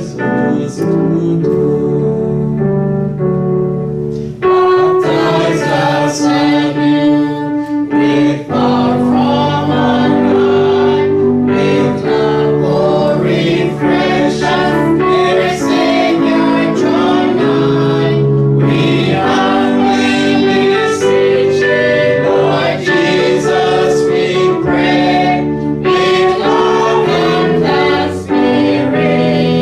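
Church congregation singing a hymn together with keyboard accompaniment, the singing growing louder about four seconds in.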